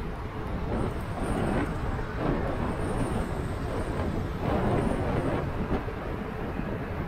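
A car driving along the road, heard through a dash cam: a steady rumble of tyre and engine noise that rises and falls a little.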